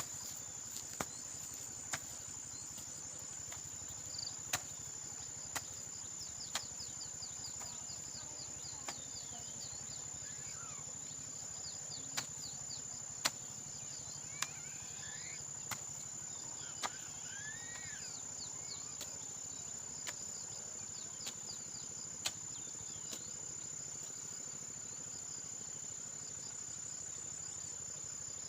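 Insects droning steadily at a high pitch, with short chirps and a few bird calls. Sharp knocks come about once a second through much of it.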